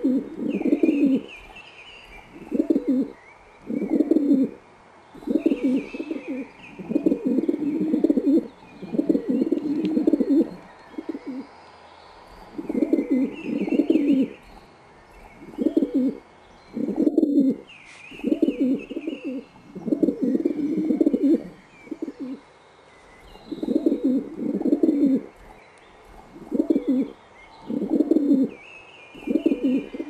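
Pigeons cooing: low, rolling coos repeated about once a second, in runs with short pauses between.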